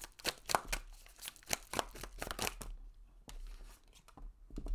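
A tarot deck being shuffled by hand: a quick run of card clicks for about two and a half seconds, then a few scattered taps as a card comes out of the deck.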